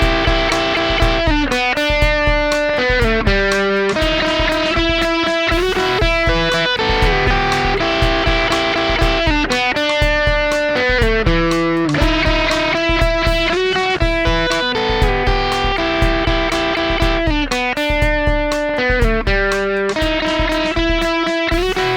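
Electric guitar playing a repeating melodic phrase of single notes and chords, lightly driven, boosted by a Xotic EP Booster pedal into a Vox MV50 AC amp.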